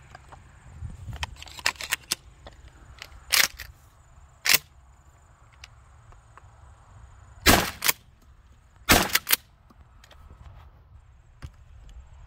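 Pump-action Mossberg 500 shotgun: a few light clicks as shells are handled and loaded, then a series of loud sharp reports of shots and pump action. The loudest come in two pairs about seven and a half and nine seconds in.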